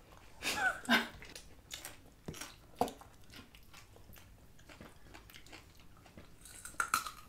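Raw carrot sticks bitten and chewed close to the microphone: scattered crisp crunches, the sharpest about three seconds in, with a brief murmur of voice about a second in.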